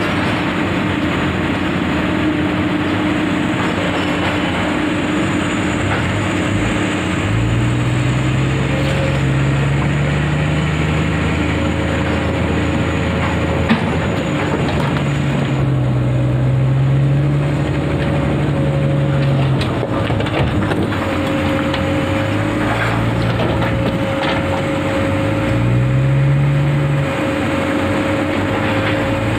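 Hydraulic excavator's diesel engine revving up in three long swells as the arm lifts boulders into a dump truck, over the steady idle of the truck's diesel engine. One sharp knock about 14 seconds in as a rock drops into the steel truck bed.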